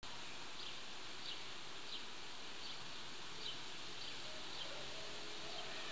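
Outdoor ambience: a steady high hiss with a faint short high chirp repeating roughly every three-quarters of a second.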